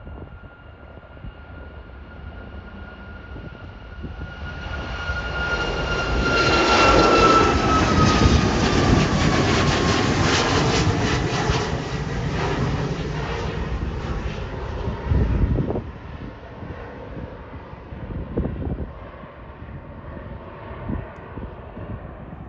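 Jet airliner passing close by: the turbofan whine and engine rumble build up, peak, then the whine drops in pitch as the aircraft goes past and the noise fades away. A brief low thump comes partway through the fade.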